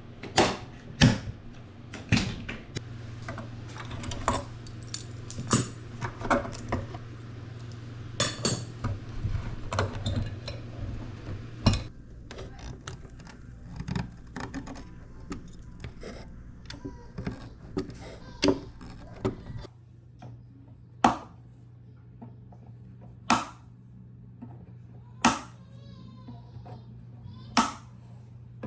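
Hand tools clicking, tapping and knocking against wood and metal during work on a bajo quinto's fretboard, over a steady low hum. The knocks are busy at first and thin out to single sharp knocks about two seconds apart near the end.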